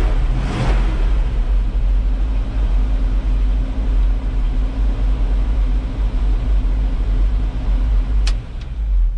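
A 1978 Chevy C50's 350 V8 engine running steadily just after starting on a newly installed ignition switch. A sharp click is heard about eight seconds in.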